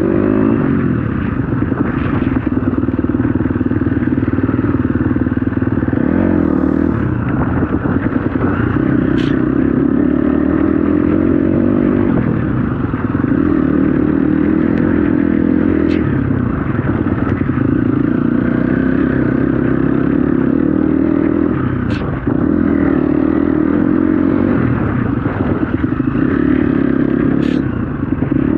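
KTM 250 SX-F dirt bike's single-cylinder four-stroke engine running on a trail ride, the revs swelling and easing every few seconds with the throttle. A few sharp clicks sound over the top.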